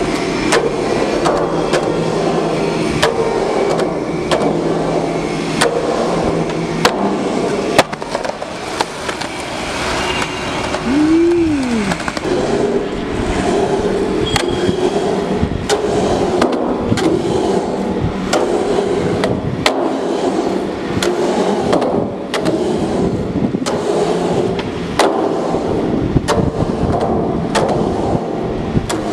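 Skateboard wheels rolling on the curved rusted steel of large full-pipe rings, with repeated sharp clacks and knocks of the board against the steel.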